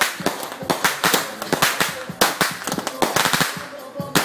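96-shot consumer fireworks cake (Pearl / Painted Galaxy) firing: a rapid, irregular string of sharp bangs and cracks, about three to four a second.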